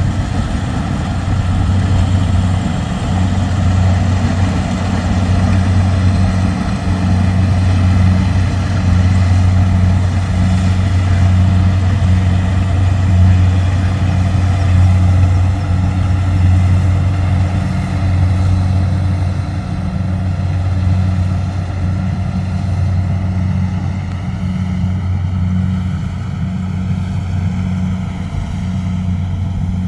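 Rice combine harvester running steadily with a loud, constant low engine drone and a faint regular pulsing.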